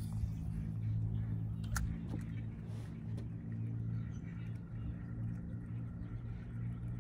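A steady low mechanical hum, with a short sharp click about two seconds in.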